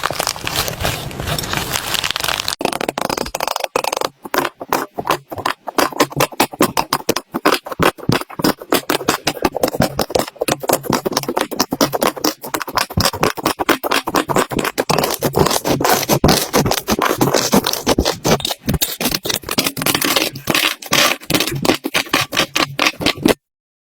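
Slime being worked by hand: a dense, continuous run of rapid crackling and popping clicks. It cuts off suddenly near the end.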